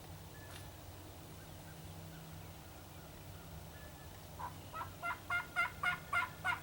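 Wild turkey gobbler gobbling: one rapid rattling series of about eight pulses, starting a little over four seconds in and growing louder toward the end.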